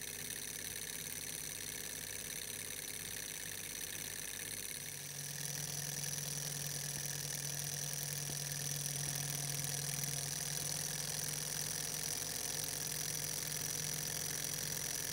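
Small OKMO J07 Stirling hot-air engine running steadily, with a light, even mechanical ticking from its moving parts. About five seconds in, the sound grows a little louder and a steady low hum comes in.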